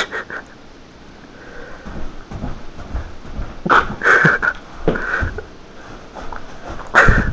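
A person's short breathy bursts, several of them, over scattered dull thuds of feet dancing on the floor.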